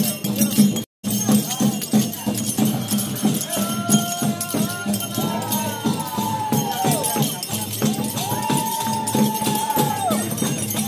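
Traditional ritual dance music: fast rattling, jingling percussion over a steady low tone, joined after a few seconds by a series of long, high held notes that rise in and fall away at their ends. The sound drops out for an instant about a second in.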